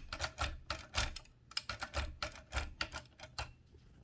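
1925 Mignon 4 index typewriter, its carriage removed, with the impression key pressed again and again by hand. Its bar and levers give a quick, uneven run of sharp metal clicks, about three a second, some coming in close pairs.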